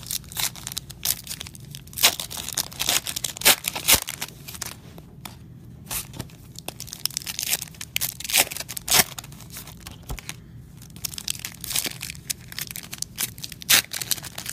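Foil wrappers of Donruss Optic baseball card packs being torn open and crinkled by hand, an irregular run of sharp crackles and snaps.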